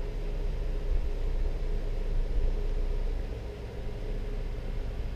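Low, steady rumble with a faint hum and light hiss, with no distinct events.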